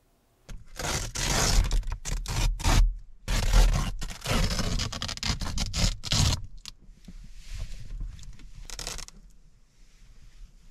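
Fabric rustling and scraping close to the microphone as a person in a padded jacket shifts about: a dense run of irregular bursts for about six seconds, then fainter, scattered rustles.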